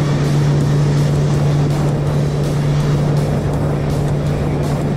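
Jet ski engine running at a steady high speed, holding one even pitch, with the rush of water and wind.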